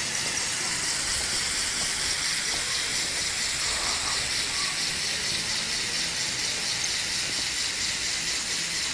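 A steady hiss with no clear beginning or end, strongest in the high range.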